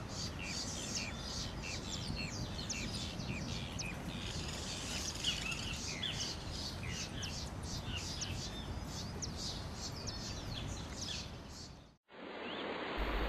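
Many wild birds chirping and calling, a dense run of short high notes over a steady background noise, fading out to silence near the end.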